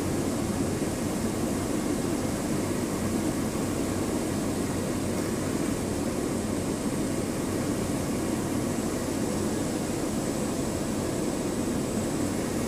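Cessna 208 Caravan's single Pratt & Whitney PT6A turboprop engine and propeller droning steadily, heard inside the cockpit on final approach, with a thin high whine running on top.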